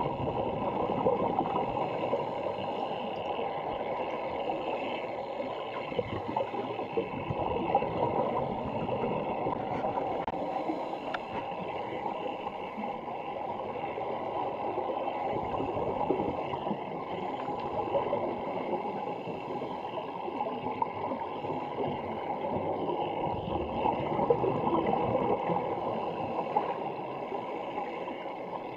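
Scuba divers' regulator exhaust bubbles heard underwater: a continuous muffled gurgling and bubbling with uneven crackle.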